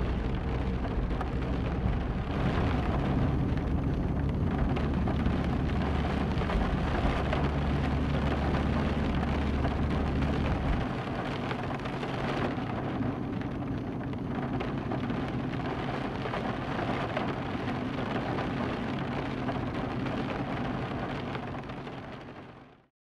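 Steady rain falling, with a low rumble underneath that drops away about halfway through; it all fades out near the end.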